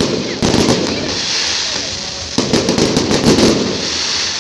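Fireworks going off in two volleys of sharp bangs, about half a second in and again a little over two seconds in, with a steady high crackle from the bursting shells in between.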